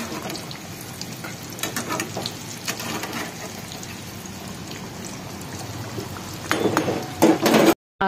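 Mini samosas deep-frying in hot oil in a metal pan, a steady sizzle with crackles as a spatula turns them. Near the end it gets louder, with a few sharp knocks.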